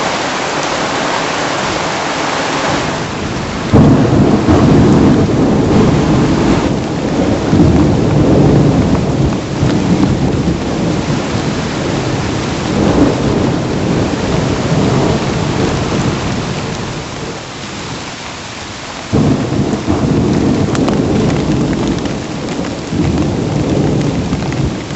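Heavy rain pouring during a supercell thunderstorm, with loud, low thunder rumbling that starts suddenly about four seconds in and again near the end.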